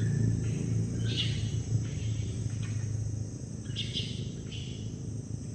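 Tropical forest ambience: a steady high insect drone, with a short call repeating about every one and a half seconds, over a low rumble that fades away after about three seconds.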